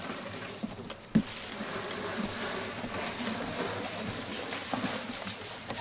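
Release liner being pulled off a peel-and-stick roofing underlayment membrane: a steady ripping hiss that starts after a single knock about a second in.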